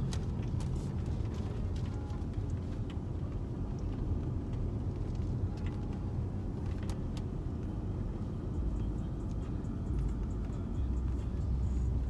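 Car driving, heard from inside the cabin: a steady low rumble of engine and road noise, with a few faint clicks.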